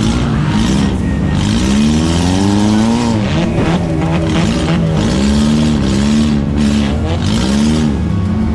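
Compact demolition-derby car's engine, heard from inside the gutted cabin, revved up and down over and over in short throttle bursts.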